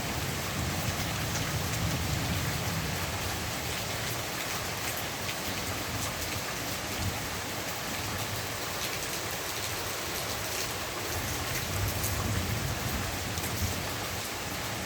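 Steady rain: an even hiss with scattered drops ticking, and a low rumble that swells near the start and again near the end.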